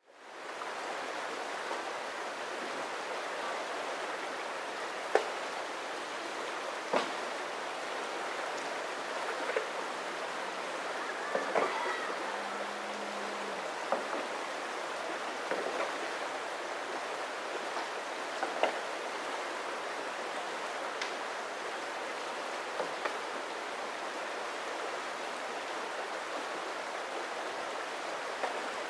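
Shallow river running steadily over rocks, fading in at the start, with about ten sharp clicks scattered through it.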